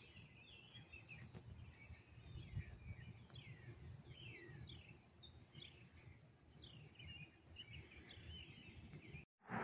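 Faint songbirds chirping: many short down-slurred calls through the whole stretch, over a low outdoor rumble.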